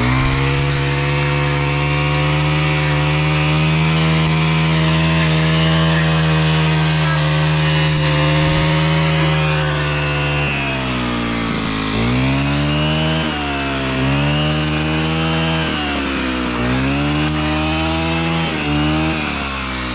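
Gas string trimmer engine running at full throttle. In the second half its pitch sags and picks back up about four times as it bogs under load in the thick growth.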